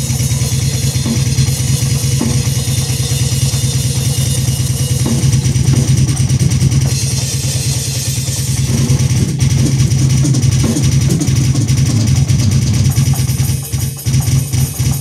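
Alesis electronic drum kit being played: a fast, steady drum pattern with rapid bass-drum pedal strokes under the cymbals and pads.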